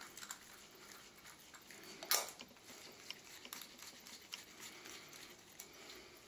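Faint clicks and light metallic taps of a threaded rod and washers being handled and screwed in at the mouth of an airgun air reservoir tube, with one sharper click about two seconds in.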